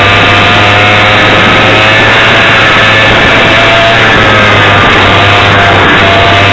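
Two-stroke 100cc kart engine running at speed, heard through an overloaded onboard camera microphone as a loud, distorted buzz. Its pitch sags slowly and picks up again near the end.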